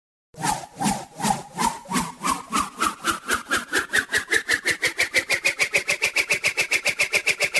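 Cartoon swoosh sound effect: a string of whooshes that speeds up from about three to about seven a second while its pitch rises, like something spinning faster and faster.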